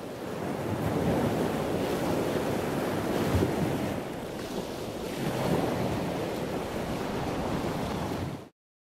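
A steady rushing noise, like surf or wind, that swells and eases a few times and cuts off suddenly near the end.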